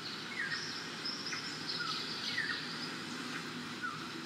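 Birds chirping in short falling chirps about once a second, over a steady high buzz of insects.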